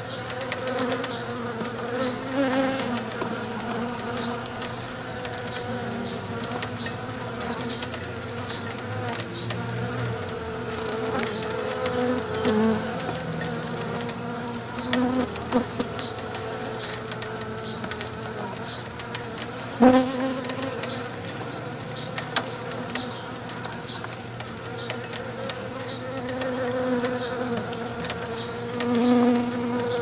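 Honey bees buzzing inside a cardboard box, many wings droning at once, the pitch wavering and swelling as bees fly past the microphone. A single sharp tap about two-thirds of the way through is the loudest moment.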